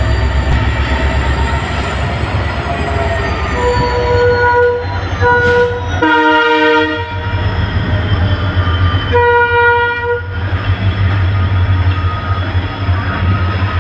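Twin WDG-4 diesel locomotives with 16-cylinder two-stroke engines, running with a steady low hum. The multi-tone horn sounds several times: two short blasts about four and five seconds in, a longer, louder one around six seconds, and another of about a second near nine seconds.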